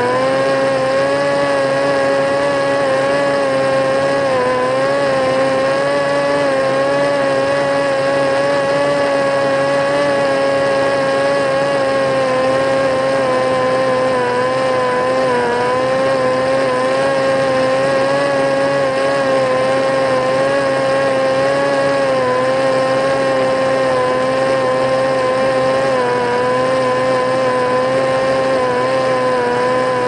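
Parrot Disco fixed-wing drone's electric motor and pusher propeller running at a steady cruise. It makes a constant whine that wavers slightly in pitch, over a rush of wind noise.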